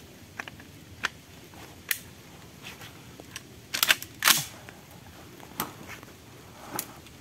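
Saiga-410 shotgun being handled: scattered short metallic clicks, with a quick run of clicks about four seconds in and a sharp, louder clack right after.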